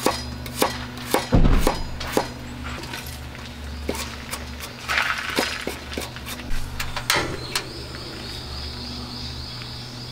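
Kitchen knife chopping garlic on a cutting board: irregular sharp knocks of the blade on the board, with a heavier low thump about a second and a half in, over a steady low hum.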